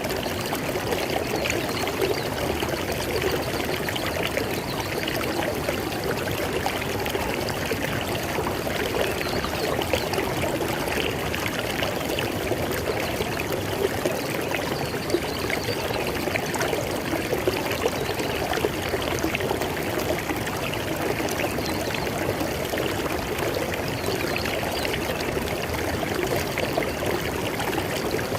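River water flowing and splashing steadily over rocks, an even rush with many small splashes throughout.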